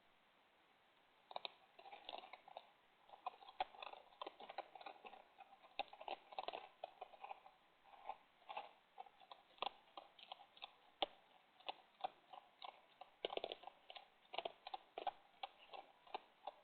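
A raccoon and an opossum chewing and crunching food close to the microphone: a quick, irregular run of small crunches and clicks that starts about a second in.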